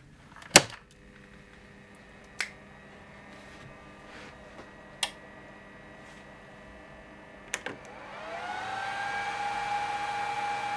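A power-switching click about half a second in, then the faint steady hum of the energised control box, with sharp clicks near 2.5, 5 and 7.5 s. From about 8 s the variable frequency drive starts its output, a whine rising in pitch and then holding steady as it ramps up.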